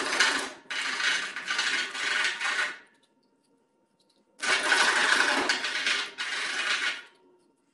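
The cut end of a PVC pipe being sanded by hand on a sandpaper disc to smooth off the jagged edge: stretches of scraping, with a pause of about a second and a half near the middle.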